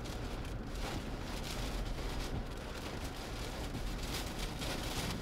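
Steady low rumble and hiss of wind and rain on a slowly moving storm-chase vehicle, the hiss swelling and easing in gusts.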